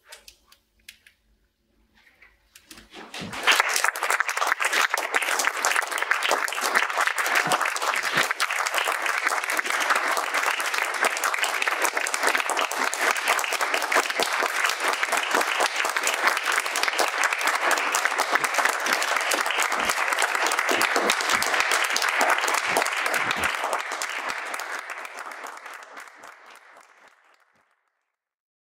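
Audience applauding, starting about three seconds in and fading out near the end.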